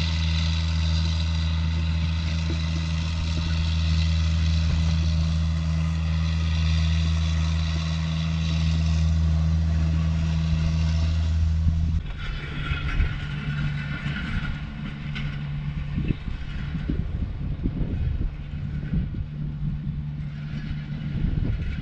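Vehicle engine running at a steady speed, a constant low hum. About halfway through the sound changes abruptly to a quieter, rougher engine rumble with scattered knocks.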